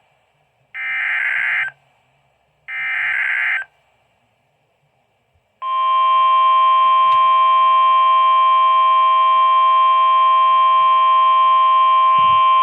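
NOAA Weather Radio Emergency Alert System broadcast: the last two of three short SAME header data bursts, about a second each, then after a gap the steady 1050 Hz warning alarm tone starts about five and a half seconds in and holds. The sequence announces an incoming weather warning.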